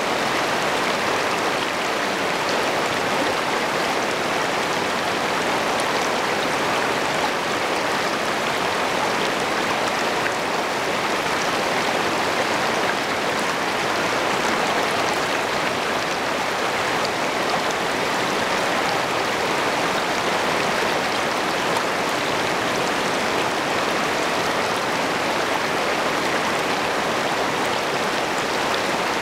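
Shallow river rapids rushing and splashing over rocks, heard close to the water's surface: a steady, loud rush of moving water.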